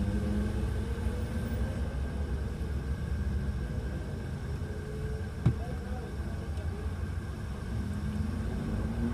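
City street traffic at an intersection: car and van engines running, a steady low rumble with engine tones drifting up and down. A single sharp click comes about five and a half seconds in.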